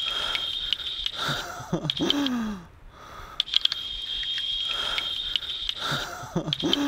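Fly reel's drag buzzing as a hooked Atlantic salmon pulls line off it, in two runs: one at the start lasting about a second and a half, another from about three and a half seconds to six. Between and after the runs come short breathy groans from the angler.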